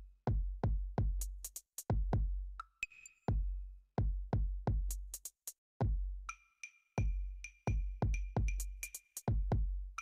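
Background electronic music with a drum-machine beat: deep bass drum hits that drop in pitch, sharp hi-hat clicks, and short high synth notes that come more often from about six seconds in.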